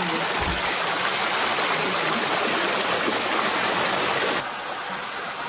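Shallow stream rushing and splashing down a small cascade over rocks, close up: a steady rush of water that drops suddenly in level about four seconds in.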